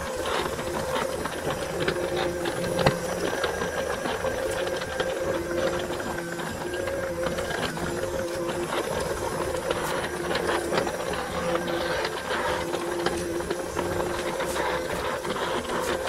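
Small budget robot vacuum running on a tiled floor: a steady motor whir with a second tone that comes and goes, and frequent small clicks and rattles.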